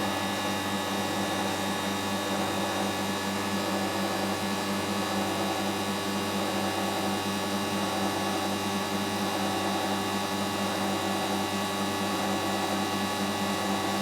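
Bristol refrigeration compressor in a condensing unit running, a steady hum with a fixed set of tones that does not change.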